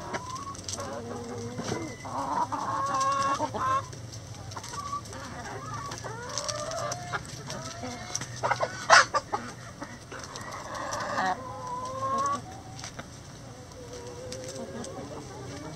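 A flock of backyard hens clucking and squawking as they crowd and peck together, with many short calls overlapping throughout. A few sharp taps stand out about nine seconds in.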